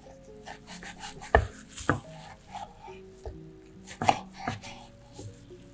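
Chef's knife cutting through a browned tortilla wrap and knocking down onto a wooden cutting board: crackly slicing with sharp knocks, two close pairs about a second in and again about four seconds in.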